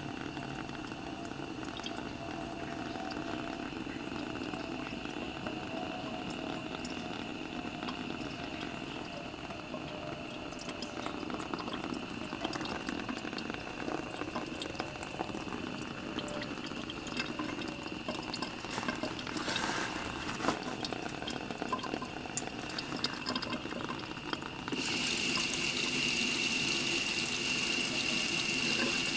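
Water running from a faucet and splashing onto water-repellent coated Cordura nylon fabric, beading and running off rather than soaking in. The splashing grows suddenly louder and brighter near the end.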